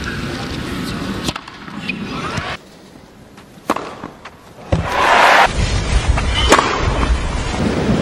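Tennis match broadcast sound: a few sharp racket strikes on the ball over crowd noise. The sound drops abruptly quieter between cuts, then the crowd noise swells loud about five seconds in.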